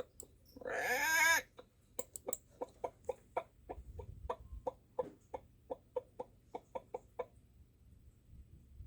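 Chicken clucking: a steady run of short, evenly spaced clucks, about three to four a second, that stops about seven seconds in. It is preceded about a second in by one louder, drawn-out wavering call.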